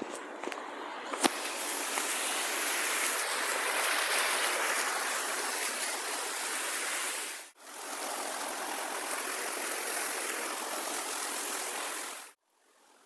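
River water rushing steadily, with a sharp click about a second in. The sound breaks off for a moment in the middle and cuts off abruptly near the end.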